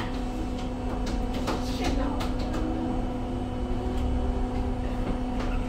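Cabin noise inside a Volvo B5LH hybrid bus: a steady hum over a low rumble, with a few light rattles and clicks between about one and a half and two and a half seconds in.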